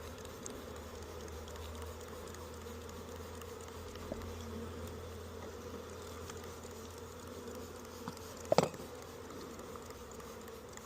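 A honeybee colony buzzing steadily around an open Langstroth hive during a nuc installation. One sharp knock about eight and a half seconds in.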